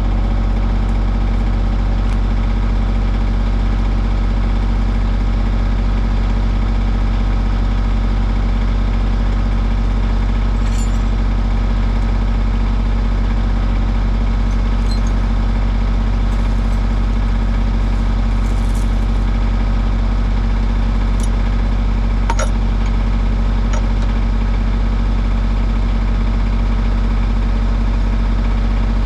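Skid steer engine idling steadily while it warms up, with a few faint clicks now and then.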